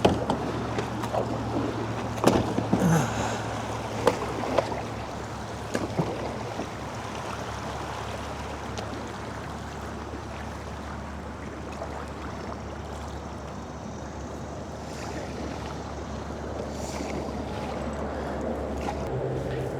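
Water and wind noise around a fishing kayak on a river, under a steady low hum. Several sharp knocks and clicks from gear being handled on the kayak come in the first six seconds.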